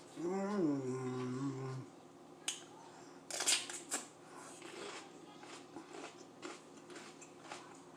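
A short closed-mouth hum, rising then held, then crisp crunching bites into raw mini sweet peppers about two and a half and three and a half seconds in, followed by faint wet chewing clicks.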